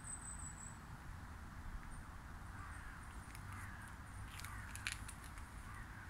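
Faint outdoor ambience: a low wind rumble, with a few light crunching steps on gravel and a bird calling a few times around the middle.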